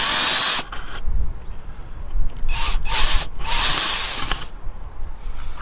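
Worx 20V cordless drill with an 8 mm bit widening old rivet holes in a motorhome's body panel, run in short, gentle bursts: one ends about half a second in, and two more brief bursts follow about halfway through.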